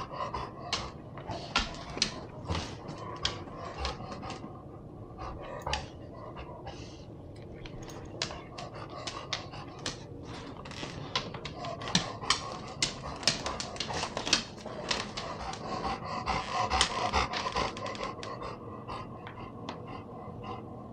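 Golden retriever panting, quick uneven breaths. This is the noisy breathing that comes on in warm weather, which the owner suspects is from allergies or laryngeal paralysis.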